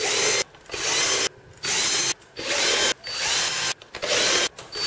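Cordless drill run in about six short bursts, each spinning up briefly and stopping.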